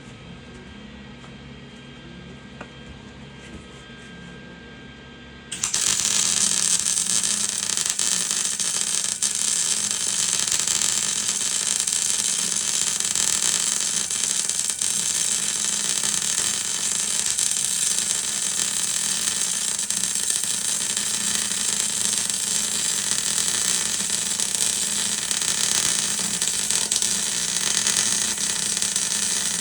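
Flux-core wire-feed welder laying a long continuous weld bead: the arc strikes about five seconds in and runs as a steady loud crackling hiss for over twenty seconds. Before it, only a low steady hum.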